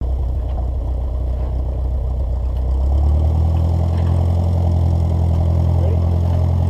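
Tow plane's piston engine running steadily at low revs, growing a little louder about three seconds in.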